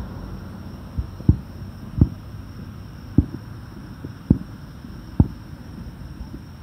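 Distant aerial firework shells bursting, heard as about six dull booms at uneven intervals over a low steady hum.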